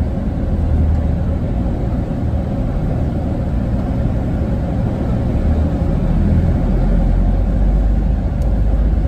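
Steady low rumble of engine and road noise from a moving airport apron passenger bus. It grows a little louder and deeper past the middle.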